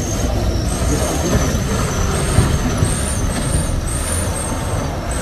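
Isuzu box truck's diesel engine running under load as it crawls over a rutted dirt road, a steady low rumble throughout. A thin high whistle wavers in pitch over it.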